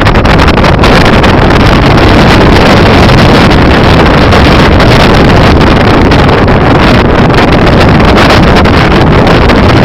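Flash-flood torrent rushing, a loud steady noise with a heavy low rumble that overloads the recording.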